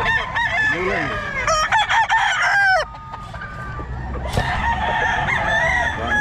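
Roosters crowing, the loudest crow starting about a second and a half in and cutting off just before three seconds.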